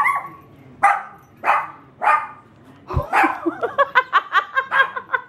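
Maltese puppy barking in alarm at an unfamiliar basket: sharp single barks, then a quick run of short barks, about six a second, near the end. A thump about three seconds in.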